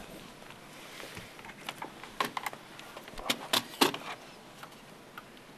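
Hard plastic clicking and snapping as an XO laptop's screen bezel is pried and worked loose by hand: a cluster of sharp clicks about two to four seconds in, the loudest near the end of it.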